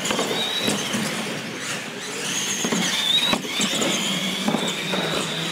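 R/C monster trucks' electric motors and gears whining, rising and falling in pitch with the throttle and holding a high whine near the end, with a few sharp knocks.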